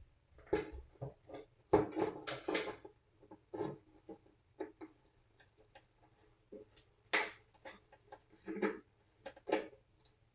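Irregular light clicks and knocks of hand tools and a wooden sign being handled, with a few louder knocks about two, seven and nine seconds in.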